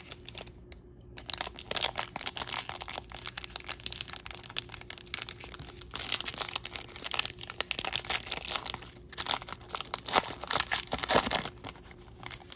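Foil wrapper of a Topps Series 2 baseball card pack crinkling and being torn open by hand: a dense stretch of crackling that starts about a second in, loudest around the middle and again near the end.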